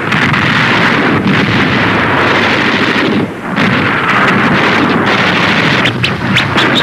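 Battlefield din of explosions and artillery fire, a continuous heavy rumble with a brief lull about three seconds in. Rapid gunfire starts near the end.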